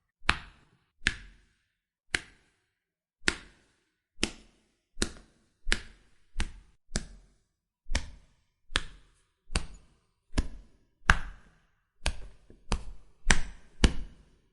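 Punch sound effects of blows to the body: a series of single dull thuds, roughly one every half second to a second, each dying away quickly, with a few coming closer together near the end.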